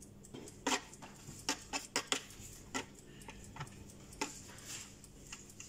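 Metal spoon clinking and scraping against a glass baking dish and a foil tray while scooping ground meat, in a string of irregular sharp taps.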